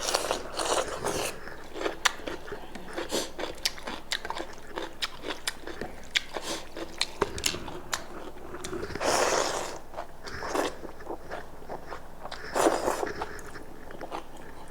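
Close-miked eating of goat meat: wet chewing and biting with many sharp mouth clicks and smacks, and two longer, louder noisy bursts, about nine and twelve and a half seconds in.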